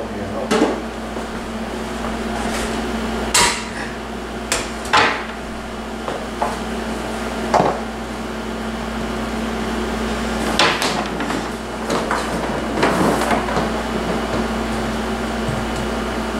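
Scattered knocks and clicks as a cordless phone's charging cradle and its cord are handled and set up on a wooden countertop, over a steady low hum.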